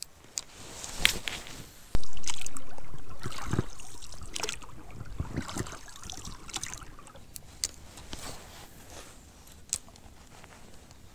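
Water sloshing and splashing around a small boat, with scattered knocks and clicks of handling, and a sudden loud knock about two seconds in that dies away slowly.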